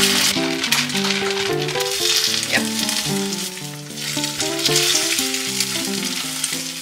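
An egg frying in hot oil in a stainless steel pan, sizzling steadily, with a spatula working it around the pan. Background music with a melody of sustained notes plays over it.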